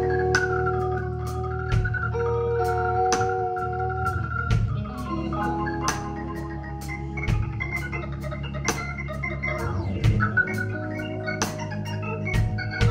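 Live band playing an instrumental passage: sustained organ-sound keyboard chords that change every couple of seconds over a steady bass, with sharp percussive ticks scattered through it.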